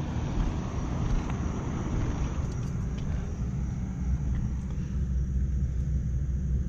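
Rooftop HVAC unit running with a steady low rumble, its higher hiss dying away about four seconds in.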